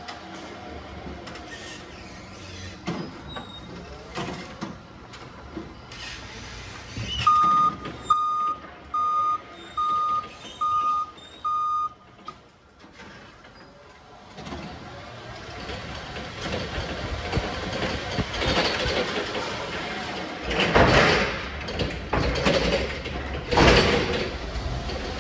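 Forklift reversing alarm beeping six times, evenly about a second apart, as the truck backs up. Then a rising rumble and rattle of the forklift driving, with two loud clatters near the end as it rolls into the trailer.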